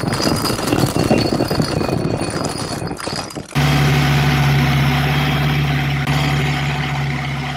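Sound effects for an animated intro: a dense rattling, clattering whoosh, then about three and a half seconds in a sudden switch to a steady, louder low drone.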